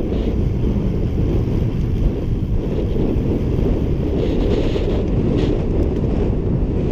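Steady, heavy wind rumble on the microphone of a bike-mounted camera, from the rush of air during a fast road-bike descent.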